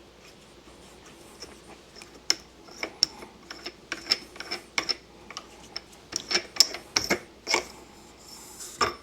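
Irregular sharp clicks and light knocks of tools and metal fork parts being handled, about twenty in all and busiest in the second half.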